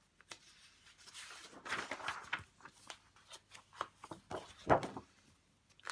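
Large paper sheets of comic art rustling and sliding against each other as a page is lifted and turned over by hand, with a sharper snap of paper a little before the end.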